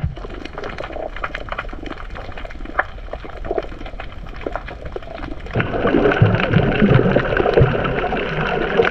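Water recorded by a submerged camera: a steady crackle of fine clicks and bubbling, which turns into louder, fuller bubbling and gurgling about five and a half seconds in.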